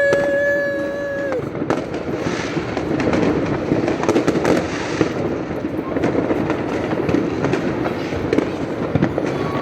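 Fireworks crackling and popping in a dense, continuous barrage of many small bangs. A steady, horn-like tone sounds over them at the start and stops about a second in.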